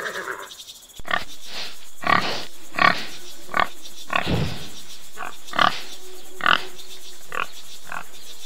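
A horse's whinny trails off in the first half second. Then collared peccaries grunt: about a dozen short grunts at irregular intervals over a steady background hiss.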